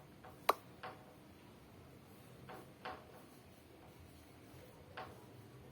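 A few light, isolated clicks and taps over quiet room tone, the sharpest about half a second in.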